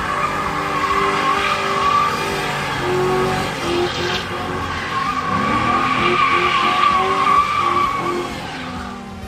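Edited-in transition audio: music with a run of short notes over a steady, wavering high tone, mixed with what sounds like car sound effects. It fades near the end.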